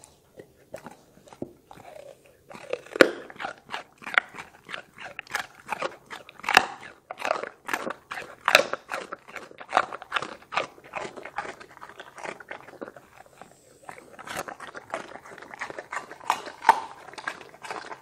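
A Doberman crunching and chewing pieces of carrot, with rapid sharp crunches. The crunching breaks off for a moment about two-thirds of the way in, then starts again.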